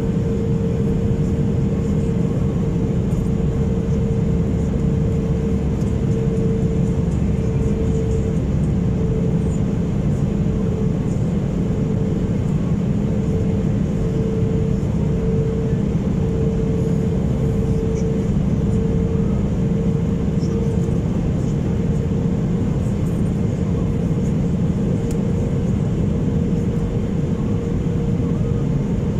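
Steady cabin noise of an Airbus A320 airliner on approach, heard from a window seat beside its wing-mounted turbofan engine: a low rumble of engine and airflow with a steady hum that swells and fades a little.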